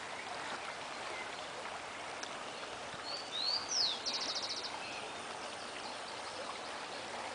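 Steady outdoor background hiss with a bird calling once about three seconds in: a few quick sweeping chirps, then a fast high trill.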